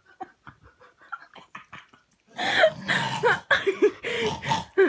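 Pet parrot letting out a run of loud, raspy squawks with sliding pitch, starting about two seconds in after a few faint clicks.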